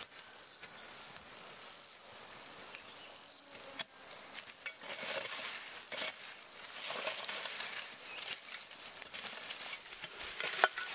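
Irregular rustling and light knocks, as of something being handled, growing busier after the first few seconds, over a steady high-pitched whine that fades out about four seconds in.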